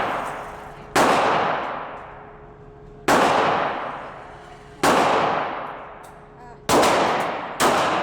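Five 9mm pistol shots fired at a paced rate, roughly two seconds apart, with the last two coming close together. Each shot rings out and fades slowly.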